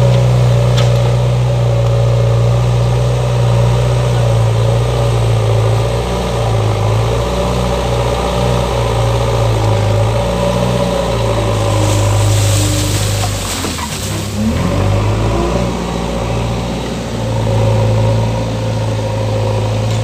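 JCB 3DX backhoe loader's diesel engine running under load while the front loader bucket pushes soil, a steady low engine note that swells and eases as the load changes. About twelve seconds in, a rush of higher noise comes for a couple of seconds, then the engine note dips and climbs back.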